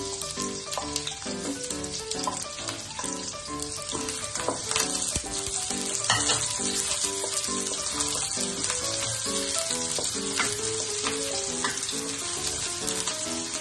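Chopped onion sizzling as it fries in hot oil in a wok, stirred with a wooden spatula, with background music.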